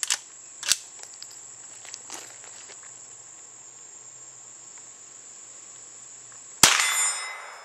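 A single .22 LR shot from a Henry Mare's Leg lever-action pistol about six and a half seconds in, followed by the ringing of the steel target. Before it come a couple of sharp metallic clicks as the lever is worked. A steady high insect chirring runs underneath.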